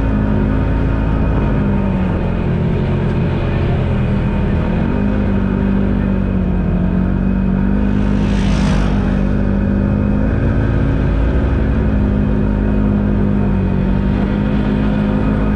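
Polaris General XP4 side-by-side's engine running steadily under way, its pitch shifting slightly a few times. About halfway through there is a brief rush of noise.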